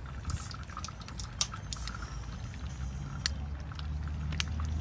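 Battered oysters deep-frying in a small pan of hot oil, crackling and popping irregularly over a low steady rumble.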